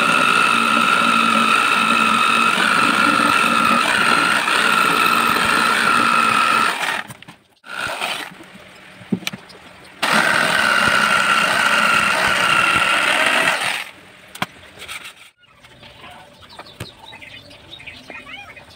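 Electric jigsaw cutting through a wooden board: a steady high motor whine over the rasp of the reciprocating blade. It runs for about seven seconds, stops, then cuts again for about four seconds, and faint clicks and knocks follow.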